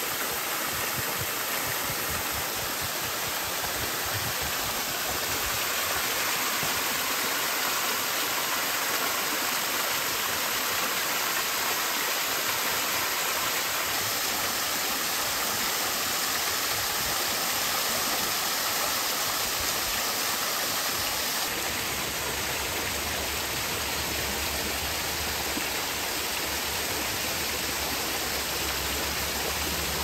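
Steady rushing of a small waterfall splashing onto rocks and a shallow stream running over pebbles. About two-thirds of the way through, the sound turns deeper, with more low rumble.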